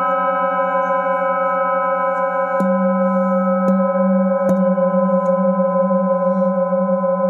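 Handheld metal singing bowl ringing with a steady, slowly pulsing hum and several higher overtones held over it. About two and a half, three and a half and four and a half seconds in, a wooden mallet taps the bowl lightly, and after the first tap the hum grows louder.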